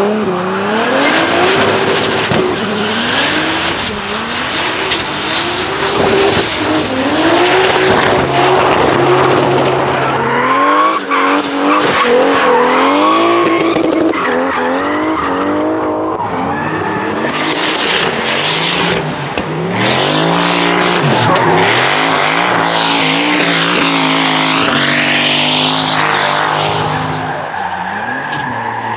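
Drift cars' engines revving hard over and over, the pitch climbing and dropping every second or two as the throttle is worked through the slides, with steady tyre squeal and skidding from the spinning rear wheels.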